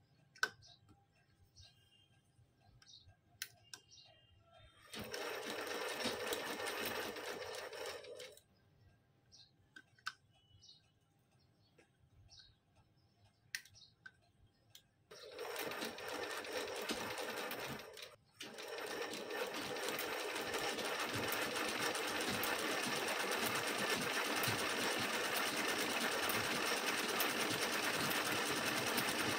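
Vintage black sewing machine stitching fabric in runs: a short run of about three seconds starting about five seconds in, another about fifteen seconds in, then after a brief stop it runs steadily from about eighteen seconds in. Before and between the runs there are scattered light clicks and taps.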